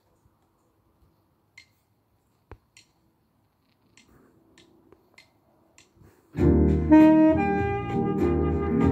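A few faint clicks, then about six seconds in a saxophone starts playing a slow melody over an accompaniment with a deep bass line.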